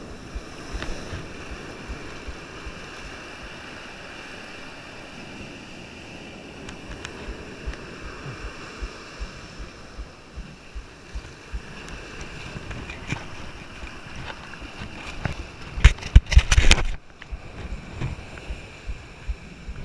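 Ocean surf washing over the shoreline with wind noise on the microphone and scattered small knocks. About sixteen seconds in, a loud burst of crackling noise lasts about a second and cuts off sharply.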